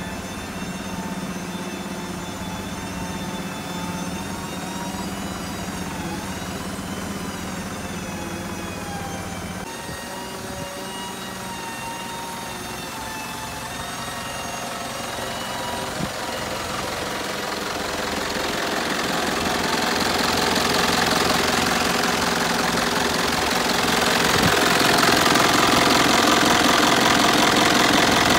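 Mitsubishi Canter's 4M50 four-cylinder turbo-diesel idling with a steady diesel clatter, which grows louder and harsher over the last third as it is heard up close at the engine.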